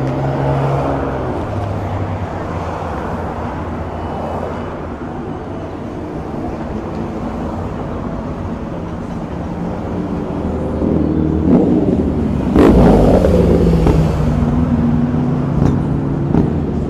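Street traffic: vehicle engines running and passing, with a steady hum that swells louder about two-thirds of the way through, where a sudden sharp burst of noise stands out.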